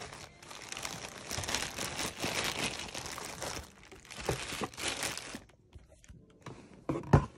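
Plastic bag and tissue-paper packing around a slide crinkling and rustling as it is handled in a shoebox, stopping about five seconds in. A few sharp knocks follow near the end.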